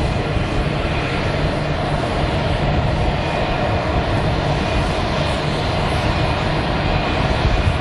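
Airbus A321-231's IAE V2500 turbofan engines running at taxi power, a steady jet rumble with a faint steady whine above it.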